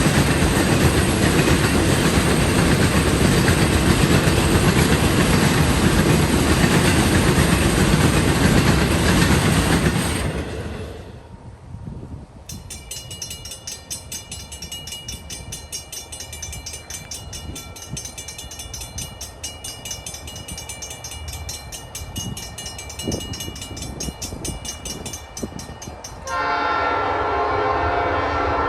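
A freight train passes, its railcars rumbling loudly on the rails, until the sound drops off sharply about a third of the way in. A rapid, even, high-pitched ringing follows. Near the end a diesel locomotive's air horn sounds a steady chord of several tones.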